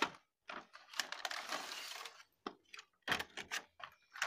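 Clear plastic blister packaging and its cardboard box being handled and opened: a sharp click, about a second of crinkling rustle, then scattered crackles and taps.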